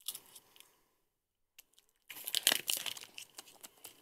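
Close crinkling, crackling rustle made of many small clicks, starting about two seconds in and loudest just after it starts, with a single short click at the very start.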